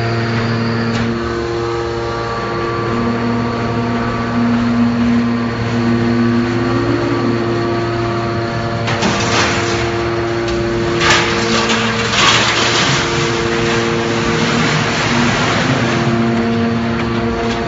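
Y81F-4000 hydraulic scrap-metal baler running with a steady, humming drone from its pump unit. About halfway through, a few seconds of louder grinding noise with sharp knocks breaks in, then the steady hum returns.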